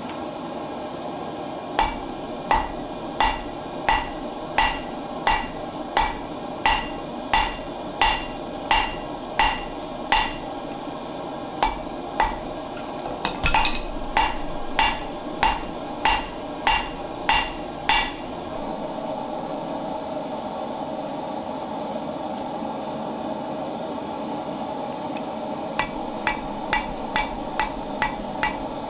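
Hand hammer forging a red-hot bar of O1 tool steel on an anvil, each blow sharp and ringing, about one and a half blows a second. The blows stop for several seconds past the middle, then resume faster near the end. The burner of a propane gas forge hisses steadily underneath.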